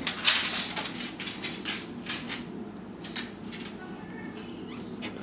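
Dog's claws clicking irregularly on a tile floor as a beagle trots across it.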